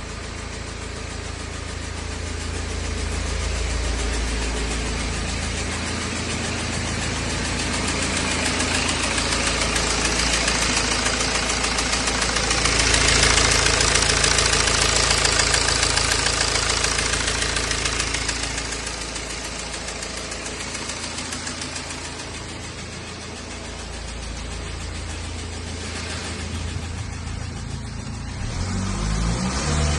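BMW E92 320d's N47 four-cylinder diesel engine running with a ticking noise whose cause is unknown. The sound grows louder for a few seconds around the middle.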